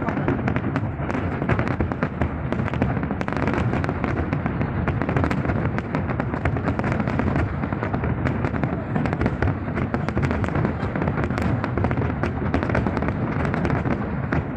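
Fireworks display going off in a dense, continuous barrage of bangs and crackles with no break.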